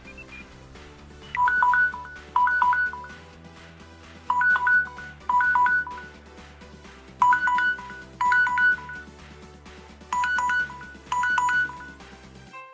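A Samsung Galaxy phone's ringtone or alarm tone playing: low sustained backing notes under a bright chime figure that comes in pairs, a pair about every three seconds. The tone cuts off suddenly near the end.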